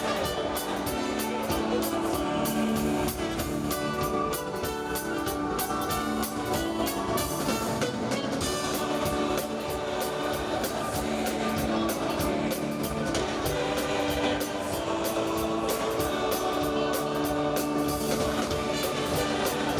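Choir singing with instrumental accompaniment and drums keeping a beat.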